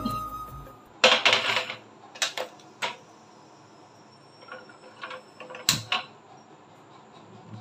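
Metal kitchenware clattering: an iron tawa (flat griddle) being handled and set down on a gas stove's burner grate, with tongs knocking against it. It comes as a string of knocks and short scrapes, with the sharpest knocks about a second in and near six seconds.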